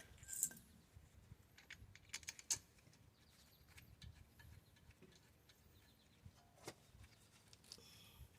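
A few scattered, quiet metallic clicks and clinks of bolts and tools being handled while brake hardware is refitted, with small sharp ticks about half a second in, around two to two and a half seconds in, and again near the end.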